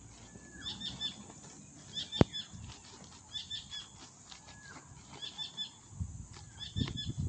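A bird chirping over and over, a short cluster of high notes about every second and a half. A sharp click comes about two seconds in, and low knocks of handling come near the end.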